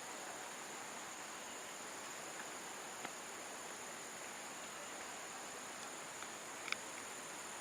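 Steady, high-pitched drone of insects, held on one pitch, over a faint even hiss, with a couple of small clicks, the sharpest near the end.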